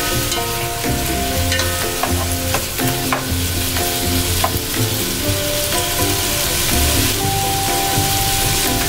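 Diced potatoes, carrots and sliced hotdogs frying and sizzling in a pot while a plastic spatula stirs them. The spatula knocks against the pot a few times in the first half, and the stirring stops near the end.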